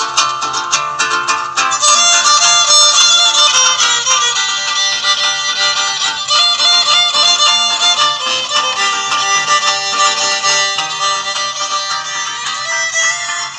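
Instrumental music led by violins, with plucked strings underneath, no singing; the arrangement grows fuller about two seconds in.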